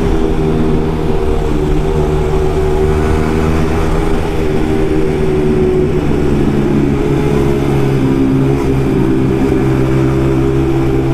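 Yamaha MT-15's single-cylinder engine through an Akrapovic carbon exhaust with the dB killer removed, running at steady riding revs with only slight changes in pitch.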